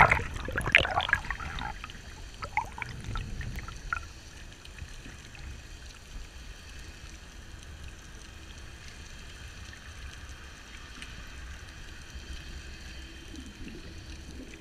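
Underwater ambience picked up by a GoPro in its waterproof housing: a steady muffled low rumble with a faint hiss. In the first couple of seconds there is louder bubbling and crackling of water close to the camera.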